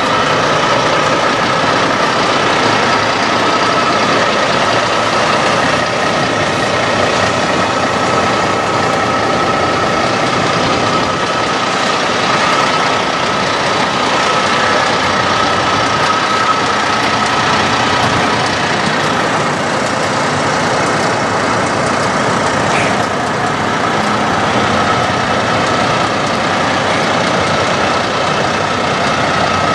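Peterbilt 389 car hauler's diesel engine idling steadily, with a thin steady whine above the engine note.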